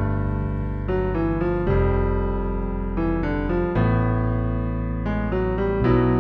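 Music: an electric piano or keyboard playing sustained chords over a held bass, with the notes changing about once a second.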